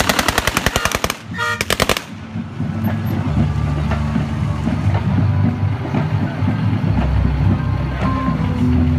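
Two rapid bursts of gunfire from a machine gun mounted on a passing military cargo truck: a fast, even rattle of shots lasting about a second, then a shorter burst just after. The deep, steady running of the military trucks' engines follows.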